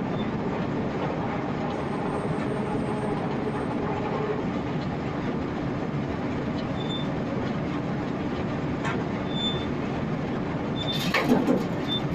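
Ear-corn feed grinder and drag-feed conveyor running with a dense, steady mechanical rattle and rumble. About eleven seconds in there is a brief, louder clatter.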